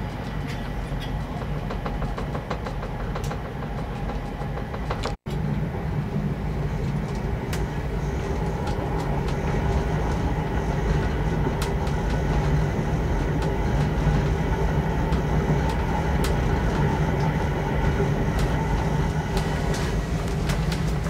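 Running noise of VIA Rail's Canadian heard from inside a passenger car: a steady low rumble with scattered light clicks. The sound drops out for an instant about five seconds in and is a little louder after it.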